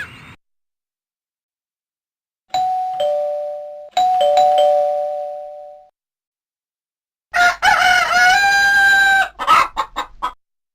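Fly X3 mobile phone alert tones: a two-note doorbell ding-dong chime, played twice, each note fading out. After a pause comes a recorded rooster crowing, followed by a few short clucks.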